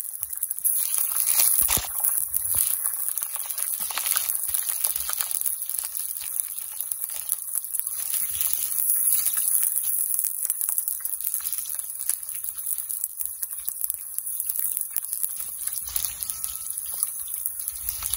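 Potato chunks frying in hot oil in an iron kadai: a steady sizzle with crackling, as a metal spatula stirs them.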